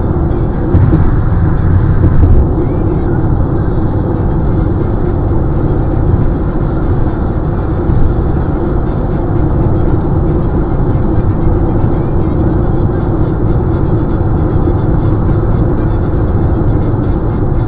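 Steady road noise of a car cruising at highway speed, heard inside the cabin: a deep rumble of tyres and engine, a little louder for a couple of seconds near the start.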